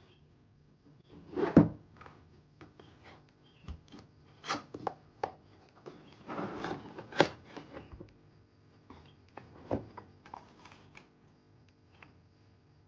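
Cardboard box and packaging being handled and opened: rubbing and sliding with scattered knocks and clicks. The loudest knock comes about a second and a half in, with a second sharp knock after a stretch of scraping around seven seconds in.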